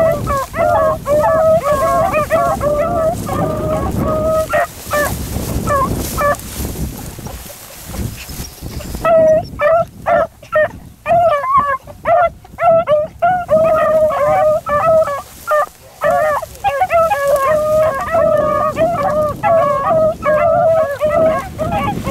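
Beagles baying, the repeated voice of hounds running a rabbit's scent line, with the calls dropping out for about three seconds around a third of the way in and then resuming thick and fast. A low steady rumble lies under the calls throughout.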